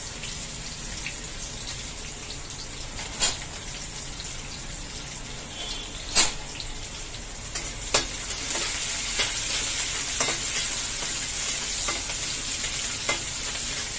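Chopped onions sizzling in hot mustard oil in a kadhai: a steady frying hiss broken by a few sharp clicks. In the second half a slotted metal spatula stirs them round the pan, and the sizzle grows a little louder.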